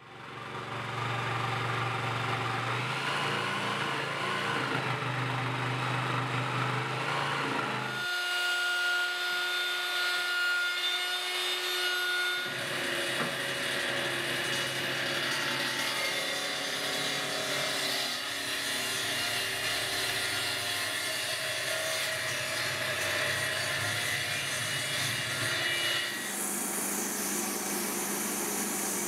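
Woodworking machines working black cherry, in a run of separate shots whose sound changes abruptly several times: a sliding table saw cutting the boards through the middle, and near the end a wood lathe turning a spindle.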